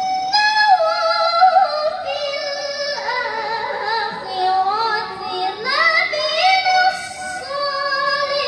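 A girl's melodic Quran recitation (tilawah) in the qari'ah style, sung into a handheld microphone over a PA: long held notes with wavering ornaments and sliding turns between pitches.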